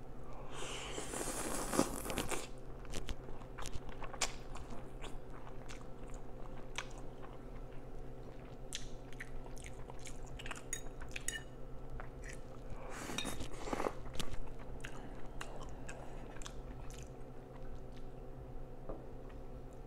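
Close-miked eating of instant noodles: a long slurp about a second in and another a little past the middle, with wet chewing and short mouth clicks in between.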